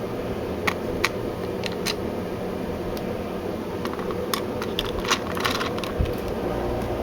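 Light clicks and ticks of a small screwdriver and screws against the plastic case of a Nintendo 64 controller as the screws are driven back in, over a steady low hum.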